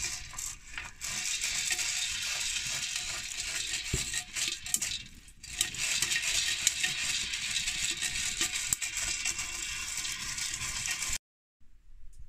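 Maize kernels rattling and popping in a hot pan over a fire: a dense, continuous crackle of small clicks. It cuts off abruptly near the end.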